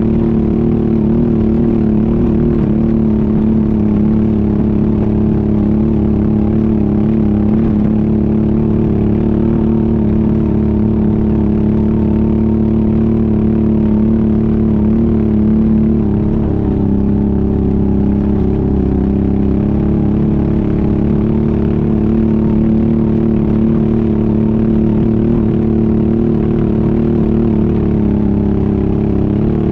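ATV engine running steadily under way, its pitch dipping slightly a little past the middle before settling again.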